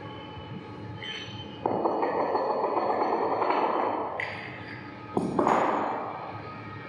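Barbell and steel weight plates being handled on the gym floor: a sudden clank followed by a rolling, scraping rumble of about two and a half seconds, then a second clank a little after halfway with a shorter rumble that dies away.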